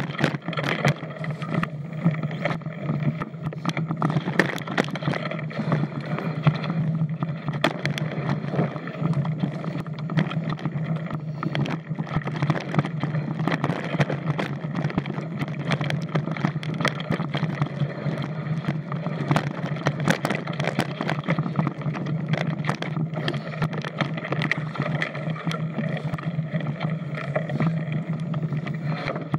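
Mountain bike riding fast down a forest singletrack: a steady rumble of knobby tyres on dirt with constant rattling and clattering knocks from the bike over roots and bumps.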